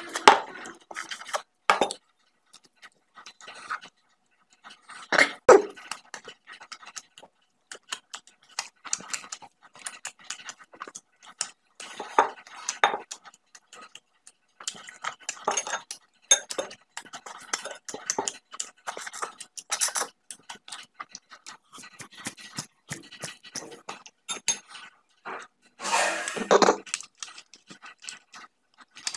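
Close-miked eating of beef paya: wet sucking and slurping at a cooked beef leg bone and lip smacking, in irregular short bursts, with a steel spoon clinking and scraping against the bone and a ceramic bowl. Two longer, louder bursts come about five seconds in and near the end.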